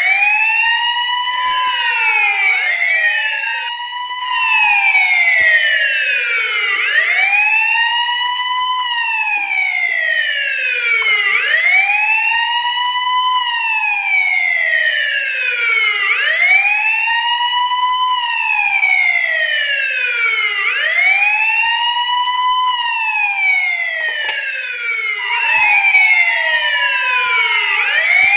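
Police siren wailing: a steady rise and fall in pitch, rising quickly and falling more slowly, repeating about every four and a half seconds. A second wail overlaps it, out of step, near the start and again near the end.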